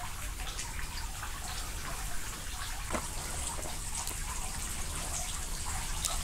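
Running water trickling and splashing steadily, with many small drips ticking through it. A sharper single click sounds about three seconds in.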